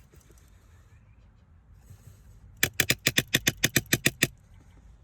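Craftsman ratchet wrench clicking as it is swung back and forth: a quick, even run of about a dozen clicks, roughly seven a second, starting about two and a half seconds in.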